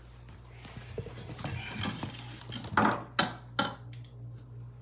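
A few sharp clinks and clatters of metal faucet parts and tools being handled, the loudest three close together about three seconds in, over a steady low hum.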